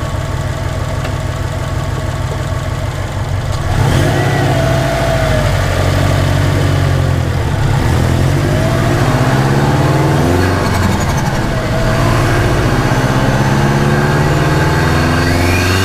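Subaru Impreza turbo flat-four engine idling evenly for about four seconds, then louder, its pitch rising and falling as it revs, with a long steady climb in pitch over the last few seconds.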